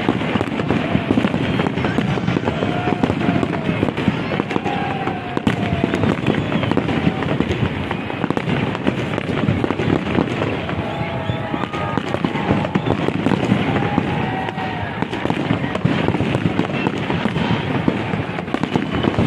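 Large aerial fireworks display: a dense, continuous barrage of bangs and crackling, shell after shell with no break.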